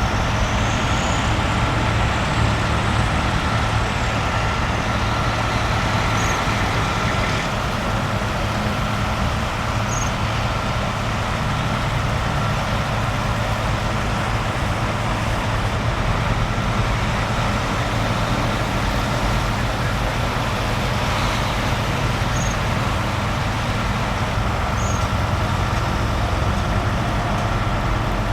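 Steady engine and road noise of a car driving on a snowy highway, with a constant low hum and a few faint high chirps.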